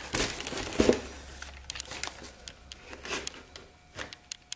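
Sneakers being handled in their shoe box: paper crinkling and rustling with small knocks and clicks, loudest in the first second and thinning out after.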